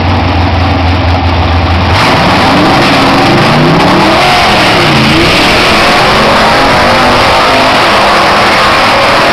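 1955 Chevy drag car's engine holding a steady low drone, then launching about two seconds in and accelerating hard down the 1/8-mile strip. The pitch climbs, dips at a gear change around five seconds in, and climbs again.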